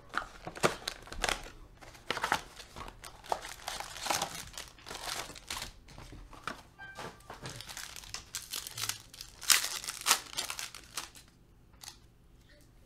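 Foil trading-card pack wrappers and box packaging crinkling and tearing as a Panini Prizm football card box is opened and a pack is ripped open. The rustling is dense and irregular, then dies down near the end.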